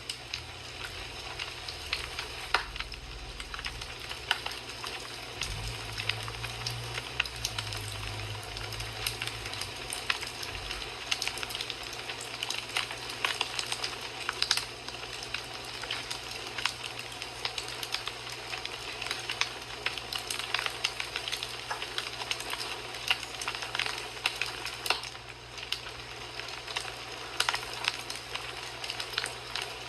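Wood fire in a fireplace crackling, a steady hiss scattered with frequent sharp pops and snaps, with a low rumble underneath for the first ten seconds or so.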